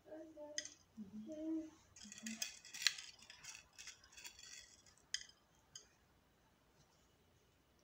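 Faint rattling, crinkling and small clicks of tiny candies and their packaging being handled, busiest from about two seconds in, dying away by about six seconds.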